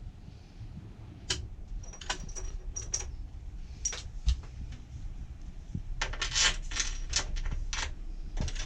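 Small metal parts clicking and knocking as door-lock hardware is handled, a few separate clicks at first, then a busier run of clinking and rattling from about six seconds in.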